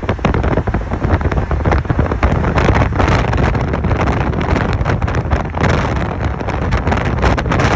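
Wind buffeting the microphone: a loud, unsteady low rumble broken by many sharp, irregular crackles.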